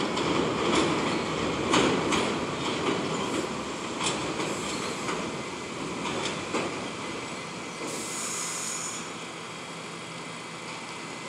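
R68-series New York City subway train pulling in and braking to a stop: steel wheels clicking over rail joints and squealing, getting quieter as it slows. A short burst of air hiss comes about eight seconds in.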